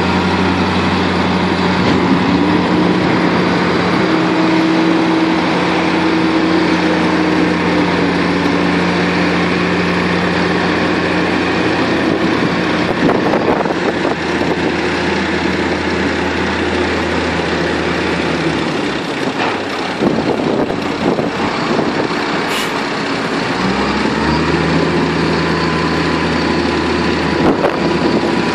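Heavy diesel engines of a Case Magnum tractor and a JCB telehandler working silage in a clamp. The steady engine note drops away about two-thirds of the way through and picks up again a few seconds later.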